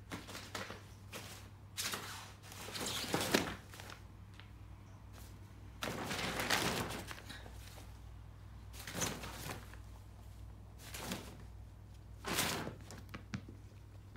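Kittens pouncing and scrabbling on the nylon fabric of a photo softbox: irregular bursts of rustling and scratching, each a second or so long, with a few light knocks, the busiest spells about two to three seconds in and about six seconds in.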